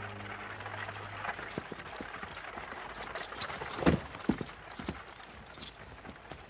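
Horse's hooves clopping in scattered, uneven beats, with one heavy thud a little before four seconds in.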